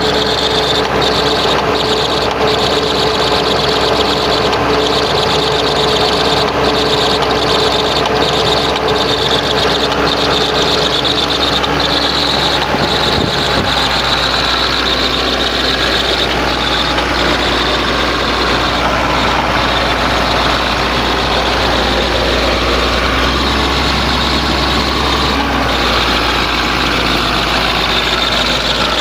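Diesel engine of a bore pile drilling rig running steadily, with an odd noise in it that marks a possible fault. Its steady tones shift about halfway through.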